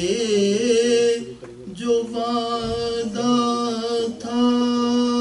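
A man's voice chanting a soz, a Shia mourning elegy, in long held notes with short breaks between them.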